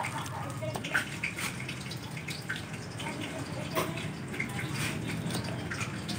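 Water splashing and dripping in irregular bursts, over a steady low hum.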